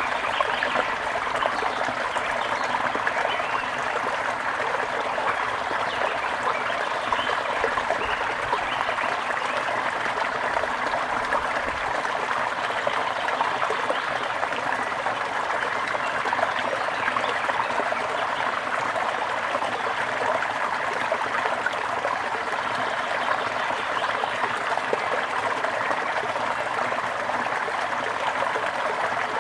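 Small stream of water trickling and babbling over stones, steady throughout.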